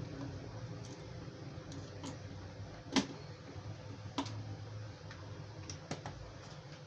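Scattered light clicks and knocks of small hard parts being handled, irregularly spaced, with one sharper knock about three seconds in, over a low steady hum.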